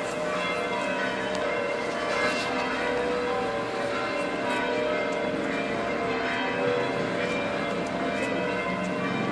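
Church bells ringing continuously: several bells sounding over one another without a pause.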